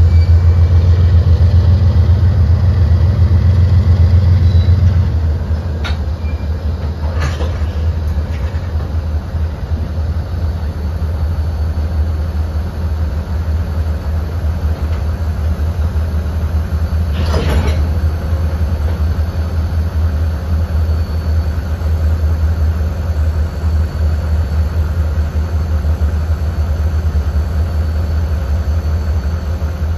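Union Pacific diesel-electric locomotives working under load to kick cars, a deep steady engine drone that is loudest for the first five seconds and then drops as the units pull away, with tank cars rolling by and a few sharp metallic clanks, the strongest about two-thirds of the way through.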